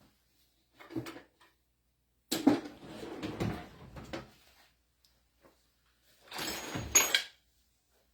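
Metal hand tools clattering as they are picked up and handled: a short knock, then two bouts of clatter, the last ending in a sharp clank.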